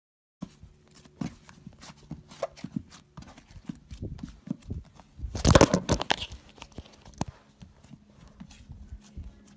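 Green slime being pressed and poked by hand on a flat surface, giving a stream of small sticky clicks and crackles, with one louder squish about halfway through.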